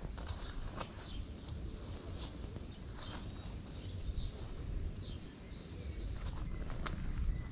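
Outdoor ambience: birds chirping now and then over a steady low rumble, with a few faint clicks and rustles.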